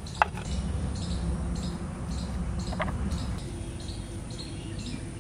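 Faint, repeated high chirping of small wild creatures, about two a second, with two short, sharper chirps, over a low rumble that eases after about three seconds.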